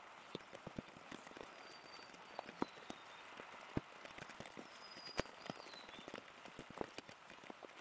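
Rain falling and dripping, a soft hiss with scattered irregular ticks and taps of drops. A small bird gives a thin, high, slightly falling call twice, once about two seconds in and again past the middle.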